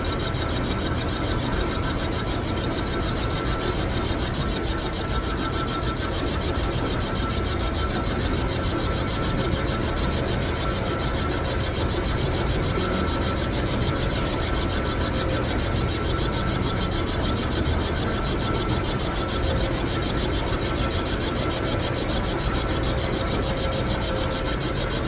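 Metal lathe running steadily, with an even scraping, rasping noise and a faint held whine.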